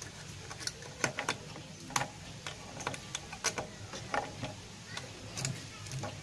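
Irregular light clicks and taps from a soldering iron and a TV circuit board being handled while a replacement electrolytic capacitor is soldered in.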